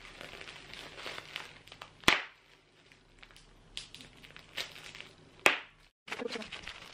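Plastic bubble wrap crinkling as it is squeezed in the hands, with sharp pops of bursting bubbles, the two loudest about two seconds in and again past five seconds in.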